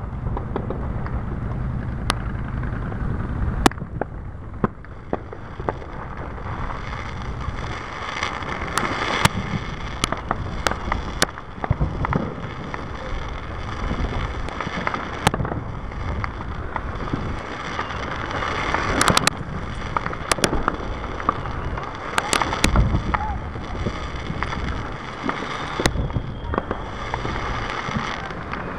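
Fireworks display going off: scattered sharp bangs and crackles, some in quick clusters, over a steady low rumble, heard from inside a car.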